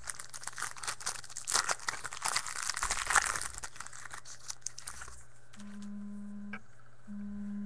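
Foil trading-card pack torn open and crinkled by hand, with dense crackling for about five seconds. Then a steady low hum comes in twice near the end.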